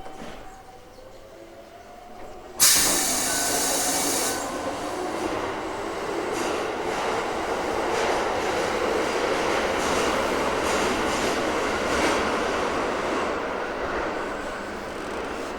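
Onboard running noise of a Toei 5300 series subway train, with faint inverter tones sliding in pitch near the start. About two and a half seconds in, a sudden loud rush of noise sets in. It settles into steady wheel-on-rail rolling noise with faint clicks from the rail joints.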